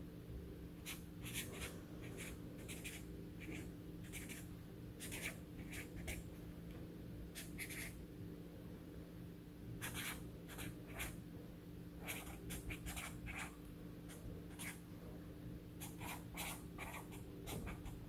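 Sharpie felt-tip marker writing on paper: short, irregular scratchy strokes in quick clusters, with a few pauses between them, over a low steady hum.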